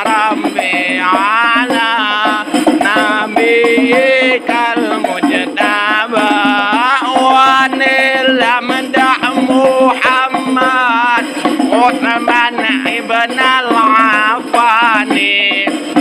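Sholawat (Islamic devotional qasidah song) playing: a voice sings a wavering, ornamented melody over continuous instrumental accompaniment.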